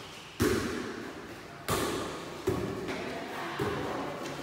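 Air volleyball, a light soft plastic ball, struck by players' hands during a rally: four sharp hits, two loud ones and then two lighter ones, each echoing in the large hall.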